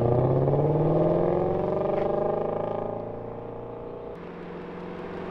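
Ford Mustang Shelby GT350's V8 pulling away in first gear from a manual-clutch start, the engine note rising for about three seconds and fading as the car moves off. About four seconds in it changes abruptly to a steadier, lower engine note.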